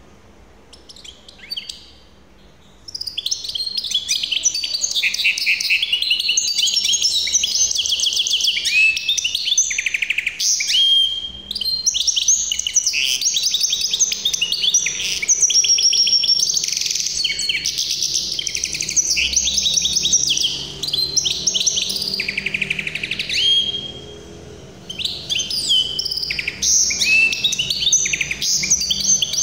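Caged hybrid finch singing a long, fast song of rapid trills and chirps, starting about three seconds in, with a few brief pauses along the way.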